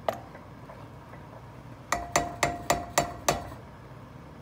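A utensil knocked six times in quick succession against the rim of a glass cooking pot. Each knock rings briefly with a glassy clink. A single lighter click comes just before them.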